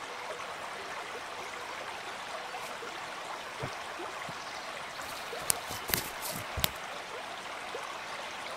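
Steady rush of running water from a stream, with a few footsteps snapping twigs on the forest floor a little past halfway.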